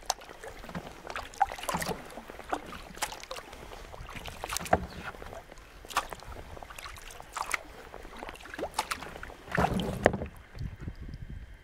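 Kayak paddling on calm water: irregular splashes and plinking drips from the paddle blades, with a longer, louder splash near the end.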